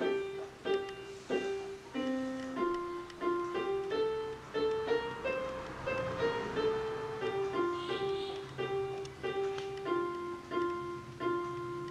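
A Yamaha PSR-I500 portable electronic keyboard plays a slow melody one note at a time, with a faint low note held underneath.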